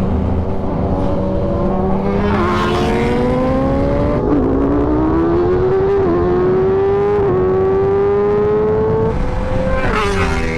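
Sport motorcycle engine pulling under acceleration, its note climbing steadily with a few brief dips as it shifts up, with a wash of wind noise in places.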